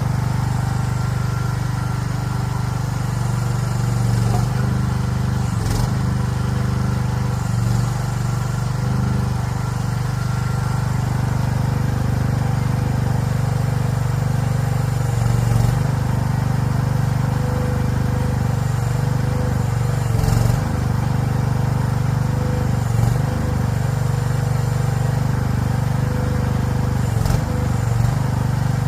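Mini excavator's engine running steadily while the machine works, with a few short knocks scattered through.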